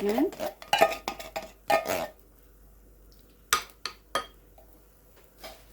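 A utensil clinking and scraping against a can and a bowl as canned eggplant dip is scooped out: a run of clinks and scrapes over the first two seconds, then a few separate sharp knocks.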